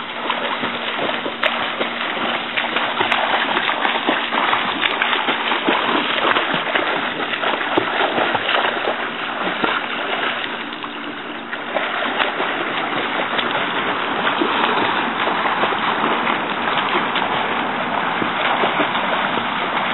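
Continuous splashing water, dense and steady, easing off slightly about halfway through.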